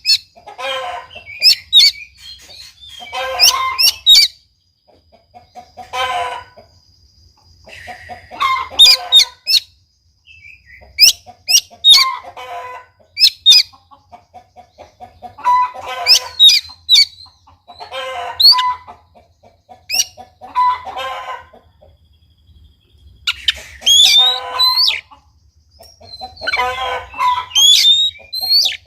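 Oriental magpie-robin (kacer) singing loudly in short phrases every second or two: sharp rising whistles mixed with harsh, chattering notes. It is a lure and tutor song meant to set a reluctant kacer singing.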